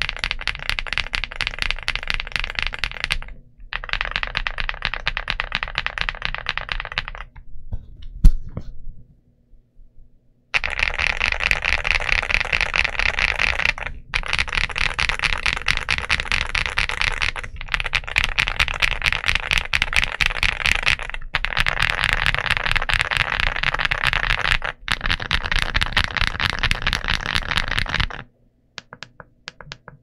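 Galaxy80 mechanical keyboard with tactile Polar Panda frankenswitches (Holy Panda housings and springs, Purple Panda stems) and MT3-profile keycaps, typed on rapidly in runs of several seconds with short pauses. A single loud clack comes a little past eight seconds in, and only a few scattered keypresses sound near the end.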